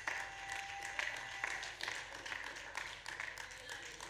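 A congregation clapping in scattered, uneven claps, with faint voices calling out in response to the preaching.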